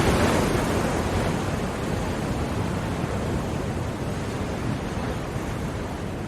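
Ocean surf: the wash of a broken wave fades slowly over a steady low rumble.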